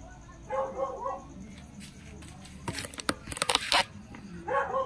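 A dog barking, one short bark about half a second in and another near the end, with a quick run of sharp clicks or knocks in between that is the loudest part.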